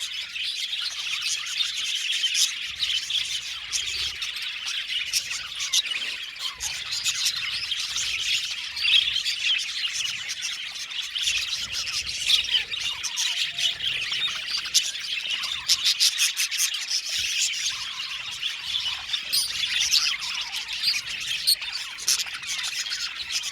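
A flock of budgerigars chattering, chirping and squawking together in a continuous overlapping warble of many short, high calls.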